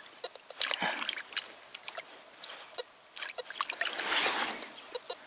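A hand rinsing a freshly dug metal star badge in a muddy rainwater puddle: irregular splashing and sloshing of water, loudest about four seconds in.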